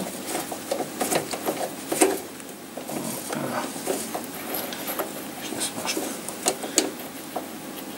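A plastic stopper being handled and pushed into the jaws of a metal lathe chuck: irregular clicks, small knocks and rubbing, the sharpest knock about two seconds in.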